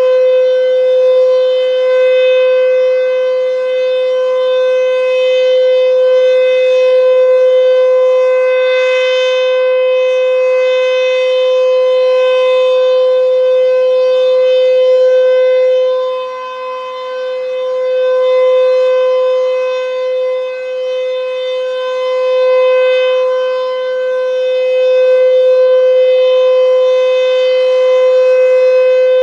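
Sentry 14V electromechanical outdoor warning siren sounding a steady single tone at full pitch during its test. The loudness swells and dips a little, with a brief dip a little past halfway.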